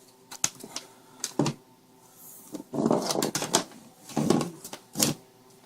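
Sharp clicks and knocks of a laptop charger's hard plastic plug and cord being handled, with a quick run of clicks in the middle.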